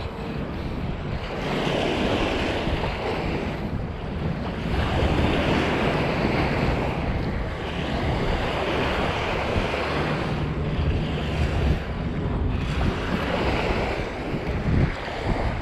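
Lake Michigan waves washing onto the beach, swelling and easing every few seconds, with wind buffeting the microphone in a low rumble.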